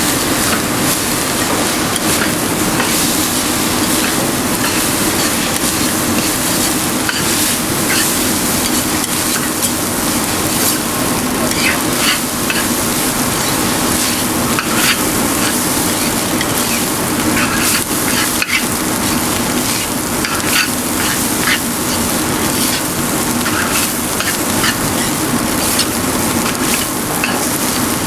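Fried rice being stir-fried in a hot wok until dry, with a little ham juice just added: steady sizzling with frequent sharp scrapes and knocks of the utensil against the wok.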